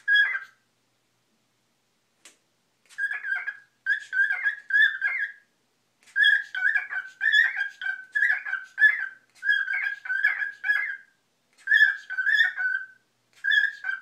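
Cockatiel chirping and warbling in runs of quick whistled notes, in several bursts with short pauses between them, singing at its own reflection in a mirror.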